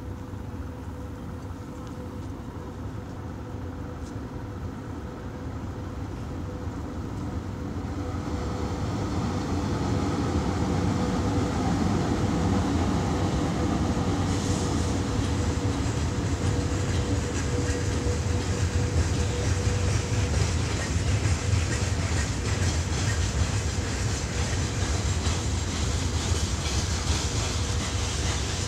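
Train running on the station tracks: a steady rumble of wheels on rail that builds over the first ten seconds and then stays loud, with a steady hum underneath.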